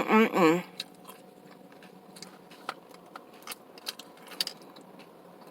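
Close-up chewing and crunching of nacho tortilla chips, with scattered small crunches and mouth clicks. It opens with a brief hummed or spoken sound lasting about half a second.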